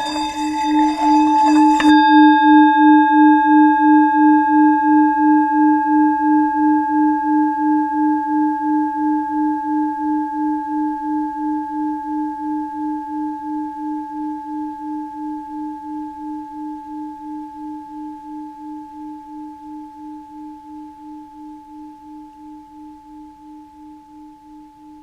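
A Tibetan singing bowl is being rubbed around its rim, with a scraping noise over its tone that stops abruptly about two seconds in. The bowl then rings on as a low, steady hum with a wavering beat and higher overtones, fading slowly.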